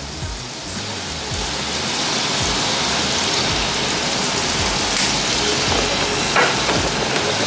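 Sake and soy sauce sizzling and bubbling around salmon in a frying pan, a steady hiss that grows louder about a second in as the sauce comes to a simmer.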